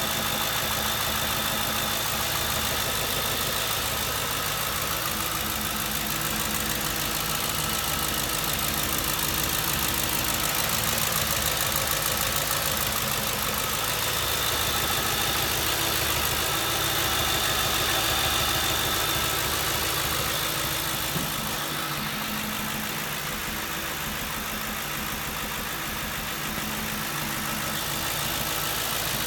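2007 Ford Crown Victoria's 4.6-litre V8 idling, with the misfire its owner is chasing, and a thin steady high whine over the engine sound.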